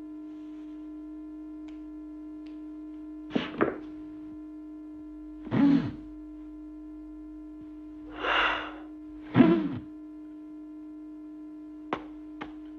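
Padded lobby-chair cushions letting out short airy hisses four times as the seated men shift their weight, over a steady hum. Two faint clicks near the end.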